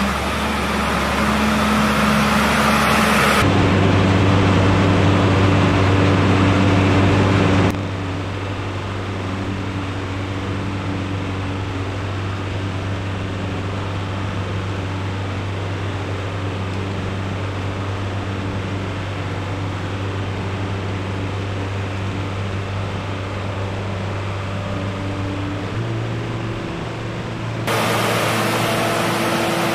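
Feed mixer wagon running steadily with a low mechanical hum as it drops feed along the feed alley, the level stepping up and down a few times.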